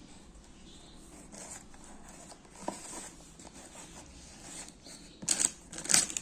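Phone packaging being handled and opened: soft rustling and small clicks, then two short, loud scraping rips about five and six seconds in.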